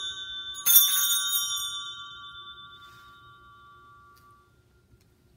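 Altar bell rung at the elevation of the consecrated host. It is struck once about a second in and rings with several clear tones that fade away over about three seconds, while the ring of a strike just before is still dying at the start.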